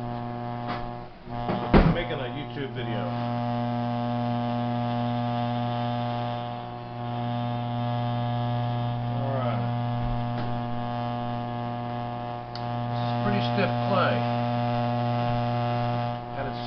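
Electric potter's wheel motor humming steadily while clay is centered on the spinning wheel. There is a sharp knock about two seconds in and a few short squeaks from hands on the wet clay.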